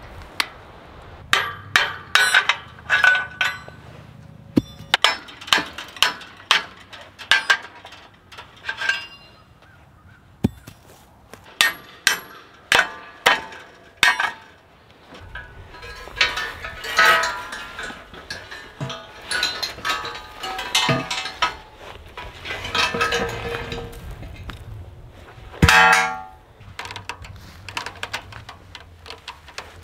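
A hammer striking metal over and over on woven-wire fence work, in quick runs of three to five blows with short pauses between. From about 16 s the blows turn into denser clanging with a ringing tail, the loudest strike about 26 s in.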